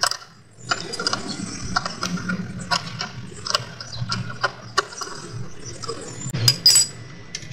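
Wrench working a nut on a terminal bolt inside a metal battery-charger case: irregular metallic clicks and ticks, with a louder cluster about six and a half seconds in.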